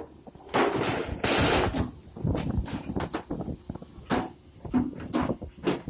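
Irregular sharp knocks and bangs of frozen cargo being handled during unloading from a ship's freezer hold, with a couple of short rushing noises in the first two seconds.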